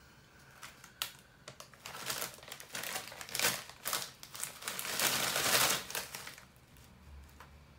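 Crinkling of a plastic potato chip bag as it is handled and raised to the face, in irregular crackles that grow busier and louder, with sniffing into the open bag, then settling about a second before the end.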